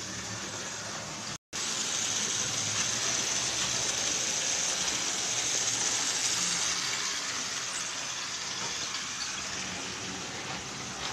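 H0-scale model trains running on the layout track: a steady whirring hiss of their electric motors and wheels on the rails. The sound cuts out completely for an instant about a second and a half in, then comes back louder for several seconds before easing off.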